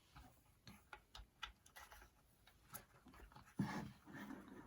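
Near silence with a few faint sharp clicks and, near the end, a soft rustle: a plastic label tape cassette being handled.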